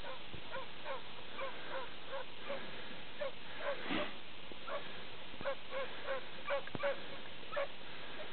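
A dog barking excitedly in a quick run of short, honking barks, about three a second with a brief pause midway, over a steady hiss.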